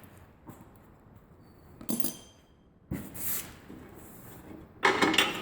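Steel hand tools clinking and clanking against the tiller's metal housing as bolts are worked loose: a few separate clinks, one ringing briefly, then a louder clatter near the end.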